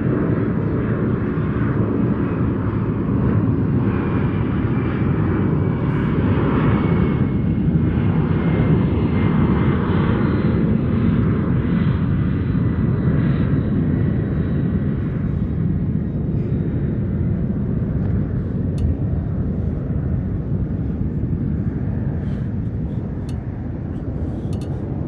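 Steady low rumbling noise that swells through the middle and fades toward the end, with a faint steady whine over it. A few sharp clicks come in the last few seconds.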